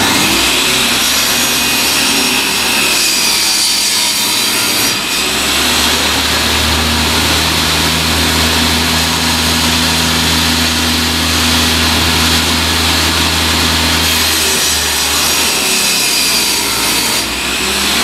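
Table-mounted circular saw running and ripping a wooden board into thin strips, the cutting noise over a steady motor hum.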